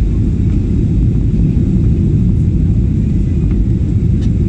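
Cabin noise inside a Ryanair Boeing 737-800 on its descent: a steady, loud low rumble of engines and airflow heard from a window seat.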